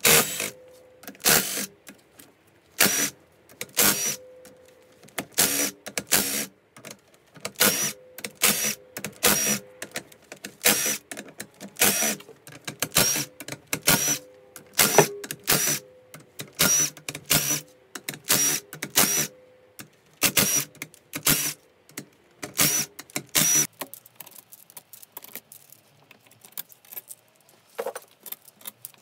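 Sharp metallic clicks and clinks, about one or two a second, from tools and parts being handled as the camshafts are taken out of a Mitsubishi 4G63 cylinder head. They thin out to a few faint ones near the end.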